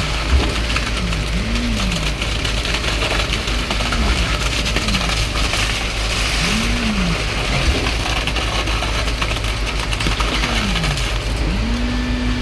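Concrete pump truck running under load: a steady diesel rumble with a tone that rises and falls about every one to two seconds, and a couple of short knocks.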